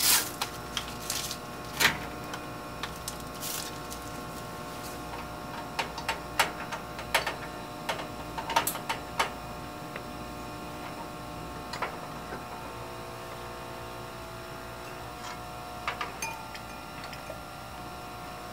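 Steady hum of a biosafety cabinet's blower, with scattered clicks and taps of plastic labware and an electric pipette being handled.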